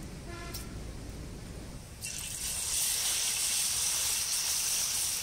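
Masala-coated fish roe frying in hot oil in an iron kadai, a steady sizzle that starts suddenly about two seconds in. Before it there is only a low rumble.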